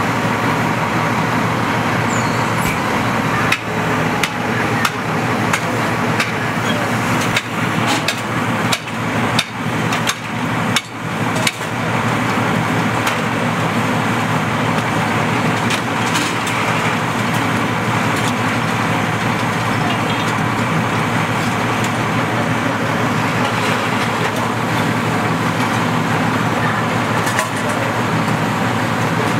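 Fire apparatus engine and pump running steadily at the fire scene, with a quick run of sharp knocks and bangs from about three to twelve seconds in, as from firefighters' tools striking at the storefront.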